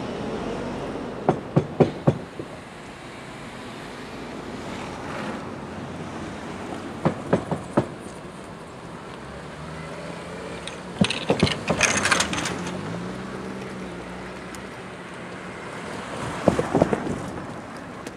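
Electric commuter train rolling slowly past, its steel wheels clacking over rail joints in sets of about four clicks, one set every few seconds, over a steady low hum. The third set comes with a brief hiss.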